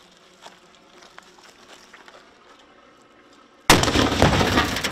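A nearby explosion goes off about three and a half seconds in, after a few quiet seconds with faint scattered pops. It is a sudden, very loud blast that carries on in a crackling rush of debris and slowly dies away.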